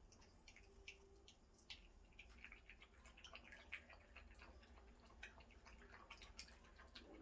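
Miniature schnauzer puppies lapping goat's milk from a stainless steel puppy feeding saucer: faint, irregular wet clicks, several a second, growing busier after about two seconds.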